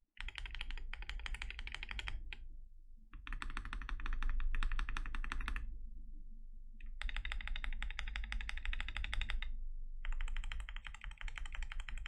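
KBD67 Lite R2 mechanical keyboard with lubed Gazzew Boba U4T tactile switches and KAT-profile PBT keycaps, its keys pressed in rapid, dense runs: four runs of about two and a half seconds each, with short pauses between. The key presses have a deep, thocky sound.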